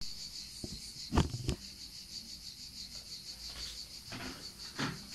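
A cricket chirping in a fast, even pulse, with two sharp knocks a little over a second in and softer rustling near the end.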